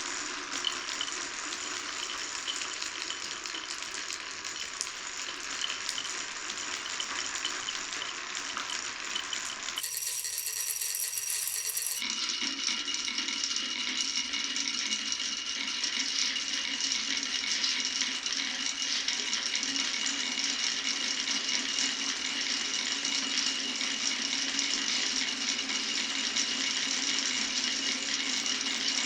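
Glass marbles rolling and clattering along a wooden marble run in a continuous, dense rattle. About ten seconds in, the sound changes for two seconds to a thinner, higher sound, then the rattle returns a little louder.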